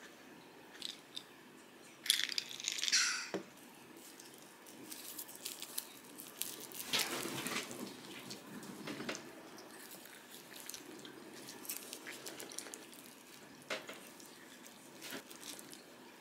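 A person eating a chicken sandwich up close: soft wet chewing and biting sounds, with a short rustle about two seconds in and scattered small clicks.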